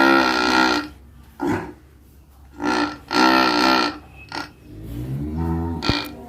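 A very large cow snoring in its sleep: loud, groaning snores that come and go every second or two, the longest at the very start. A single sharp click sounds near the end.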